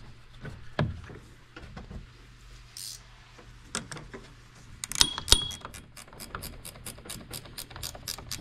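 Metal clicks and knocks as a battery cable terminal is fitted onto the battery post, two sharp ones about five seconds in. After that comes a ratchet wrench clicking steadily, about five clicks a second, as the terminal bolt is tightened.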